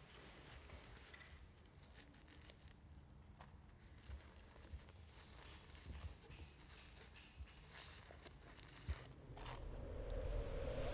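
Faint scraping and tearing as a desalination compress is cut out and peeled from sandstone with a knife, with a few soft clicks. Near the end a low rumbling background noise fades in.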